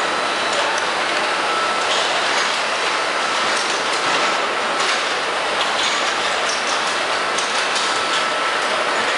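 Steady din of a running car assembly line: the overhead conveyor and plant machinery make a constant hiss with a faint high steady whine and scattered clicks and rattles.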